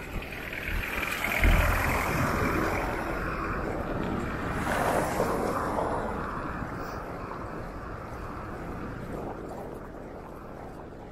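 A vehicle passing by: noise that swells over the first couple of seconds, holds, then slowly fades away. A brief low buffet of wind hits the microphone about a second and a half in.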